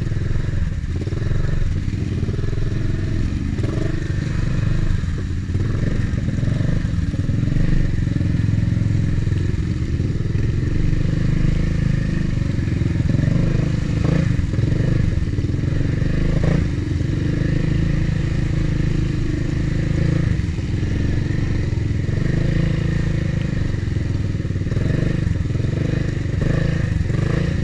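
ATV engine running steadily under load as the quad drives through shallow floodwater, with water splashing around the wheels.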